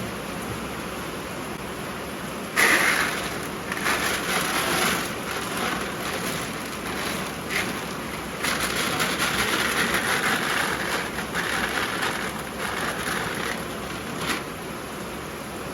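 Heavy rain pouring down steadily. Louder, uneven rushing and rattling noise starts suddenly about two and a half seconds in and keeps going until near the end.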